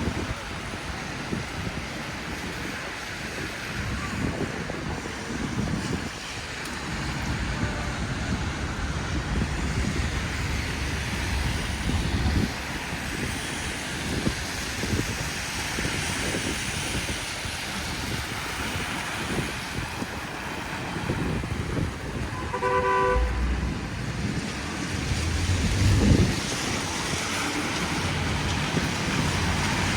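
City street traffic: a steady wash of vehicle noise with cars passing, and a car horn honking briefly about three quarters of the way through.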